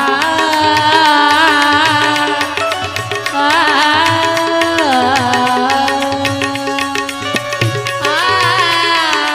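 Devotional bhajan music: a melodic line in long, wavering held notes, in three phrases, over tabla.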